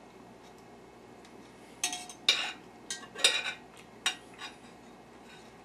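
Cutlery clinking and scraping against a plate while eating: a cluster of sharp clinks and short scrapes about two seconds in, lasting a couple of seconds, the first with a brief ring.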